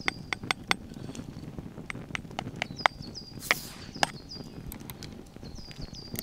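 Wood campfire crackling, with irregular sharp pops and one short hissing burst about halfway through. Over it a bird repeats a short high note in quick runs, three times.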